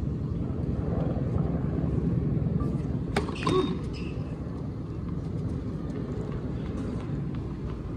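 Tennis ball struck by rackets in a rally, with the sharpest hit about three seconds in and a brief pitched sound just after it, over a steady low outdoor rumble.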